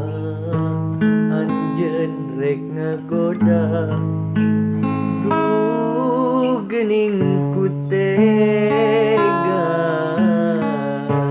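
Music: acoustic guitar accompanying a melody line that wavers with vibrato.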